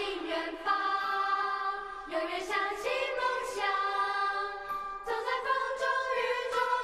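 A Mandarin pop ballad theme song: a singer holds long notes over instrumental backing.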